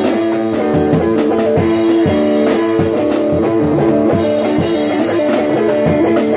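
Live band playing: a drum kit keeps a steady beat under guitar and long held notes from the band.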